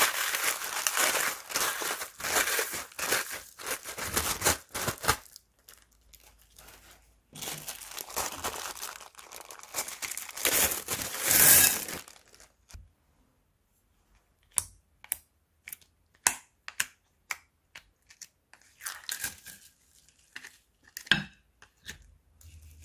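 Plastic bags crinkling and tearing in two dense spells of close-up crackling. These give way to a string of separate sharp clicks and snaps in the second half.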